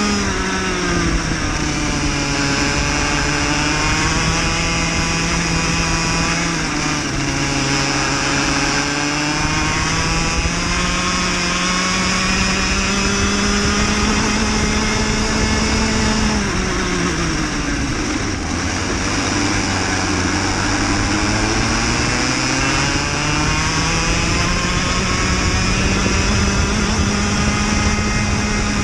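Cadet racing kart's engine heard from onboard at racing speed, its revs dropping sharply into corners about a second in, around seven seconds and around seventeen seconds, and climbing steadily back up along each straight.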